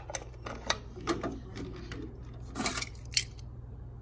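Sharp metal clicks and rattles of a key working a post office box lock and the small metal box door being opened, with keys jingling.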